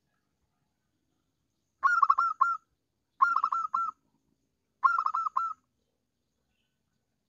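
Zebra dove (perkutut) singing: three short phrases of quick staccato cooing notes, four or five notes each, about a second and a half apart.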